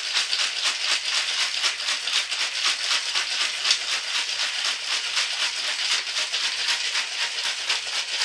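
Ice cubes rattling hard inside a covered cocktail shaker shaken vigorously by hand, a fast even rhythm of clacks with each stroke.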